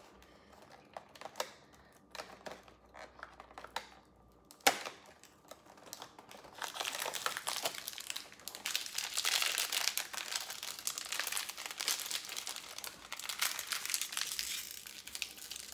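A few light clicks and taps, one sharper click a little before five seconds in. From about six seconds in, toy packaging crinkles and tears for several seconds as it is opened.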